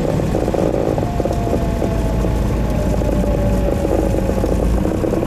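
Grumman AA-5A Cheetah's four-cylinder Lycoming engine and propeller running at low power during the landing rollout, heard from inside the cabin as a steady, loud rumble. A faint thin tone sets in about a second in and sinks slightly in pitch.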